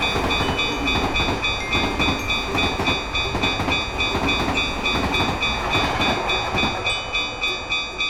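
A steady, dense rumbling noise under music whose bright, high tones repeat in a quick, even pulse.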